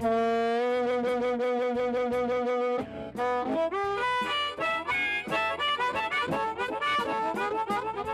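Blues harmonica: one long note held for nearly three seconds, then a quick run of short notes with bent pitches.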